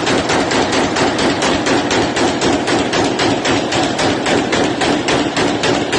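A long, unbroken run of rapid gunshots, about six or seven a second, typical of an automatic rifle fired in celebration.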